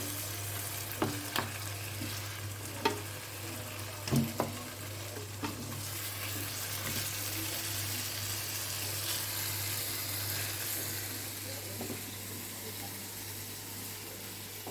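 Food sizzling as it fries in a pan, with a cooking utensil stirring and knocking against the pan several times in the first half.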